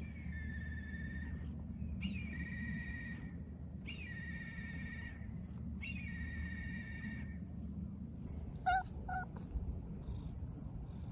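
A black cat purring steadily while it is stroked, a low continuous rumble. Over it, a drawn-out high call repeats about every two seconds for the first seven seconds, and two short, sharp chirps come close together about two-thirds of the way through.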